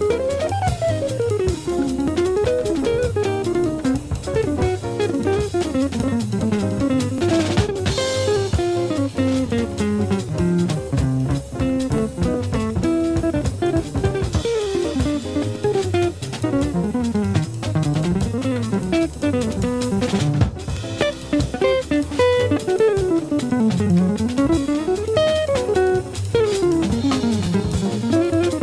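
Jazz guitar recording: an electric archtop guitar plays fast single-note lines that run up and down, over a drum kit.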